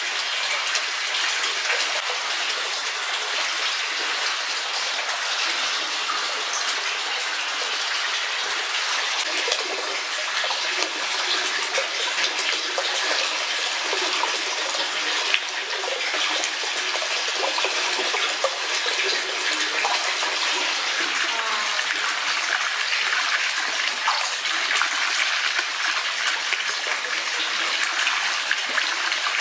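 Steady rush of running water in an open-air rock hot-spring bath.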